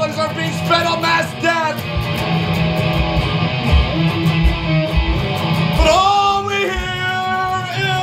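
Rock song with strummed guitar and a singing voice. The voice drops out about two seconds in, leaving held guitar chords over drum beats with cymbal ticks, and comes back in near the end.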